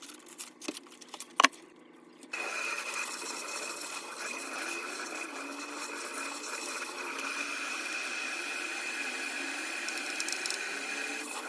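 A couple of clicks, then an electric appliance motor switches on abruptly about two seconds in and runs steadily with a high whine.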